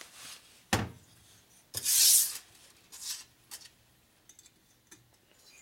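Handling noises from fitting valve springs on an aluminium shovelhead cylinder head: a sharp knock a little under a second in, a short scrape about two seconds in, then a few light clicks of metal parts.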